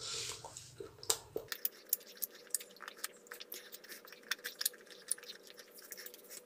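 A person chewing a biscuit-chunk chocolate bar close to the microphone. From about a second in there is a quick, irregular run of small mouth clicks and crunches.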